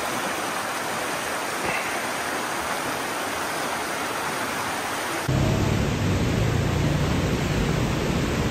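Steady rushing wind noise on the microphone while cycling. About five seconds in it switches abruptly to a louder, deeper rumble of wind buffeting.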